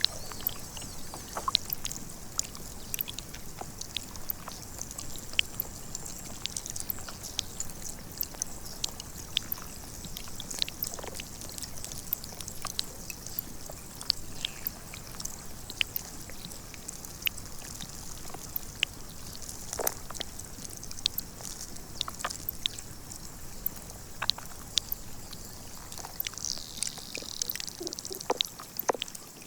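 Melting glacier ice recorded up close with a microphone in the meltwater or against the ice: irregular sharp clicks and pops of escaping air bubbles, a few a second, over a steady hiss.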